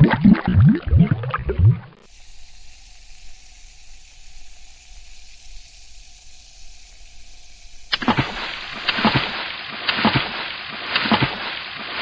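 Water splashing and bubbling, from a sound-effect track: quick rising bubbly plops for the first two seconds, then a much quieter steady hiss, then loud fizzing splashes with many crackling pops from about eight seconds in.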